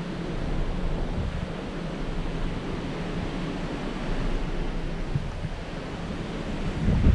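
Seawater rushing and churning along a cruise ship's hull, with wind buffeting the microphone. The wind rumble grows louder near the end.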